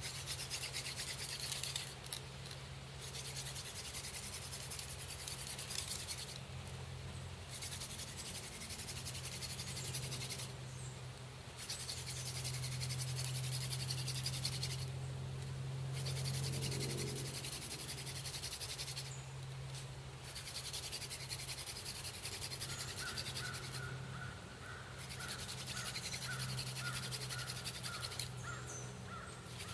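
Wooden hand-drill spindle spun between the palms against a soft-wood baseboard: a scratchy friction grind in runs of about three to four seconds, broken by short pauses as the hands return to the top of the spindle. A rapid pulsing squeak joins in over the last third.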